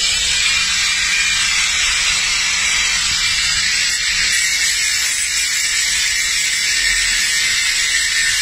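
Handheld angle grinder running steadily with a high, even hiss, its disc held at a dog's mouth to cut through a bone lodged there.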